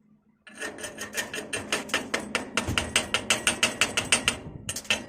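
A rapid, even series of sharp mechanical clicks or taps, about six a second, with a brief break near the end.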